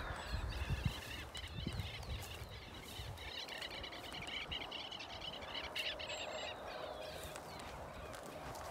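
Many small birds chirping and twittering at once, busiest around the middle, over a steady outdoor hiss; a few low thumps in the first couple of seconds.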